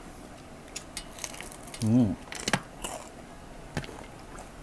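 Close-miked eating of crispy fried chicken: wet chewing and lip-smacking clicks, with one sharp crunch about two and a half seconds in. Just before the crunch comes a short, wavering hummed "mmm" through the mouth, the loudest sound here.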